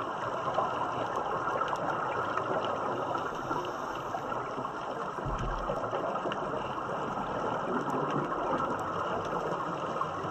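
Underwater ambience picked up by a submerged camera: a steady rushing hiss with faint crackling clicks, and scuba divers' exhaled bubbles. A brief low thump about five seconds in.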